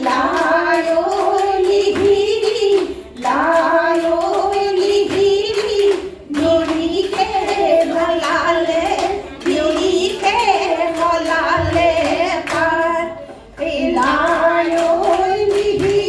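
Women singing a Jeng Bihu folk song through microphones, with rhythmic hand clapping from the dancers. The singing comes in phrases with short breaks every few seconds.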